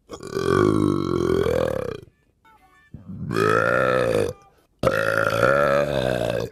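A man's long, deliberate belches, three in a row: the first about two seconds long, the second about one and a half, the third nearly two.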